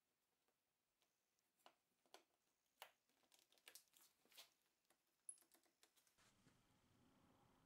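Faint clicks and taps of small plastic one-handed bar clamps being set and squeezed onto a steel ruler and a wooden strip, a series of separate clicks. A faint low hum comes in about six seconds in.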